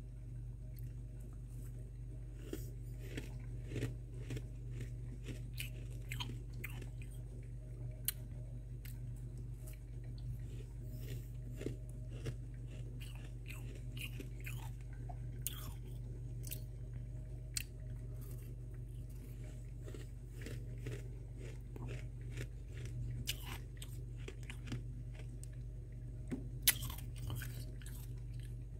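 Someone crunching and chewing a mouthful of freezer frost: scattered crisp crunches and crackles, with one sharper crunch near the end, over a steady low hum.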